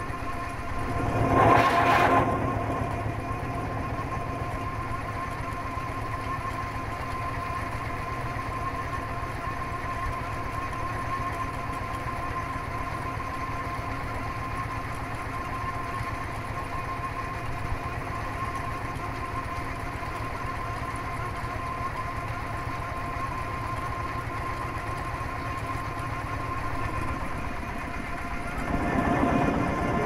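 Mini combine harvester's engine running steadily, with a brief louder surge about two seconds in.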